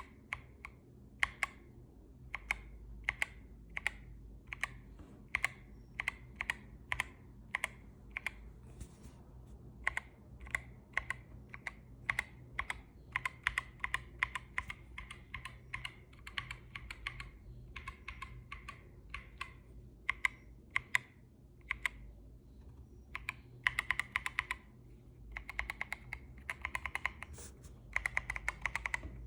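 Mechanical keyboard with Gazzew Boba U4T tactile switches being pressed: single keystrokes about every half second at first, then quicker runs of presses. Each key clacks as it springs back to the top of its travel, the topping-out sound the owner takes for a fault.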